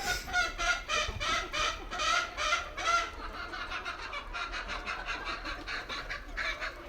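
A flock of free-range desi chickens clucking: a quick run of repeated calls, about three a second, for the first three seconds, then softer, busier clucking.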